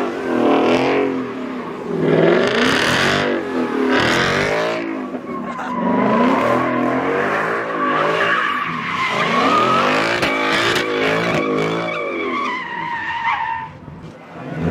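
Car engine revving up and down hard with tires squealing, as in drifting or donuts. A long, steady tire squeal holds from about six seconds in and cuts off shortly before the end.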